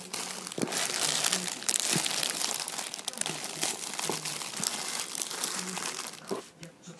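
Clear plastic bags of packaged squishy toys crinkling and crackling as they are handled and moved.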